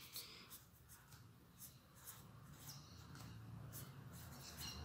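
Felt-tip marker writing a date on a paper workbook page: a faint series of short separate strokes.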